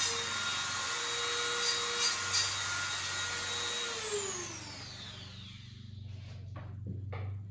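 Dremel rotary tool running at high speed on aluminum flat bar, with a few sharp ticks about two seconds in. It is switched off about four seconds in and its whine falls in pitch as it spins down. Faint handling knocks follow near the end.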